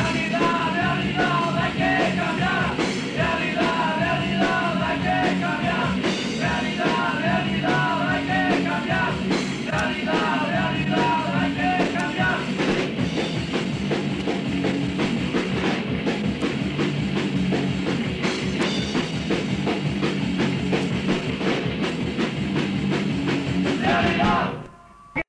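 Punk rock song played by a full band with drums, with sung vocals over the first half and the band playing on without singing after that. The song ends abruptly about a second before the end.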